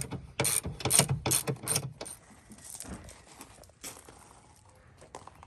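A quick run of five or six sharp metallic clinks in the first two seconds, from bolts and hand tools being handled, followed by faint handling noise.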